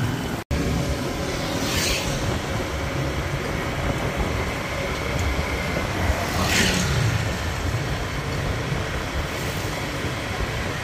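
Motorbike traffic heard from a moving motor scooter: a steady engine and road rumble, swelling briefly a few times as other motorbikes pass close by. The sound drops out for an instant about half a second in.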